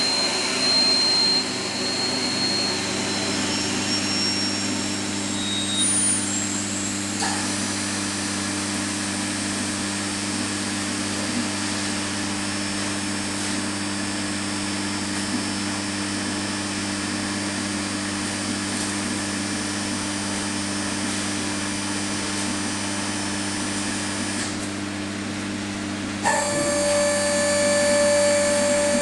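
Large belt-driven machine powered by an electric motor running steadily: a low hum under a higher whine. The whine changes about seven seconds in, and near the end a louder, higher tone comes in.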